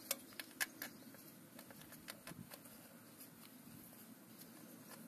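Small metal clicks and light scraping as a cast iron sealing ring is worked onto a tractor transmission input shaft with a screwdriver: a few sharp clicks in the first second, then fainter ticks.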